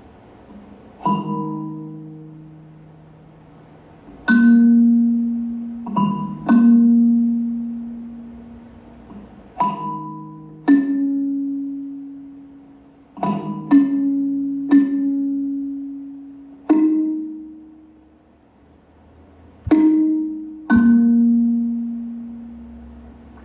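Sparse music of single notes struck on a pitched percussion instrument, about ten in all, each with a sharp attack that rings out and fades over one to three seconds before the next.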